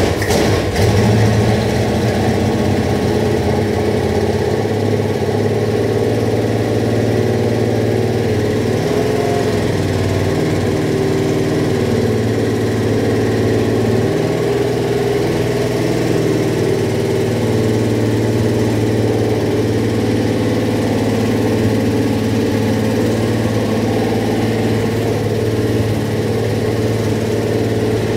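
Freshly rebuilt Buick 401 Nailhead V8 on an engine run stand, idling steadily just after being started.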